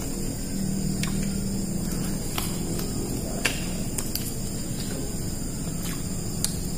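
Scattered sharp clicks and crunches of people eating with their hands, biting raw pak choi and cucumber, over a steady high whine.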